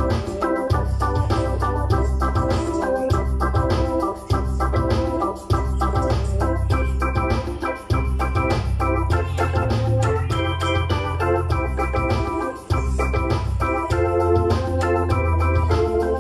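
Portable electronic keyboard playing a gospel instrumental passage: sustained chords over deep bass notes, changing every second or two, with the bass briefly falling away a few times.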